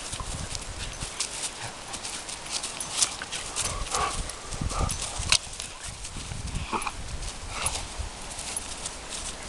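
Two dogs play-wrestling on grass: a few short dog vocalisations, with scuffling, clicks and knocks between them.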